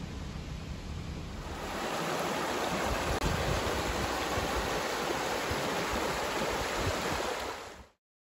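Stream water rushing over rocks in a steady, even noise that grows louder about a second and a half in, then cuts off abruptly just before the end.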